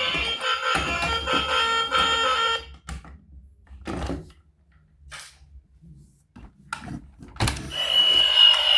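Toy vehicles' electronic sounds: a tinny tune that cuts off abruptly about two and a half seconds in, then a few light clicks and knocks, then a sharp click near the end and a steady high electronic tone.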